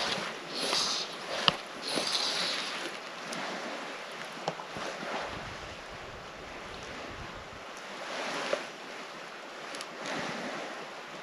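Shallow lake water sloshing softly around a wading angler, with wind on the microphone. Three short swishes come in the first three seconds, then the sound settles to an even hiss.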